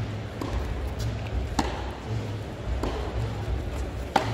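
Tennis ball being struck back and forth in a practice rally: four sharp pops of ball on racquet strings and court, about one every second and a quarter, echoing in the indoor hall. The loudest is the forehand near the end. A steady low hum of the arena runs underneath.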